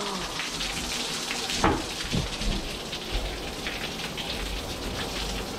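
Spring water spilling down the rock over the cave entrance and splashing, a steady rain-like hiss. A single sharp knock about a second and a half in.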